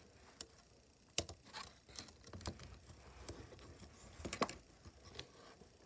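Plastic Lego bricks clicking and rattling as a small brick-built airplane is handled, with scattered sharp clicks, the loudest about a second in and again past four seconds.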